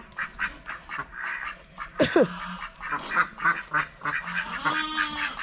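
Ducks quacking in a run of quick, short calls, with a sharp falling call about two seconds in and a longer, steady-pitched call near the end.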